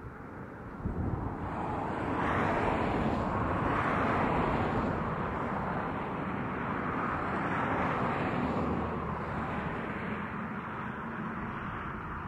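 A train passing close by: a steady rumble and rush of rolling noise that swells sharply about a second in, stays loud, and eases slightly near the end.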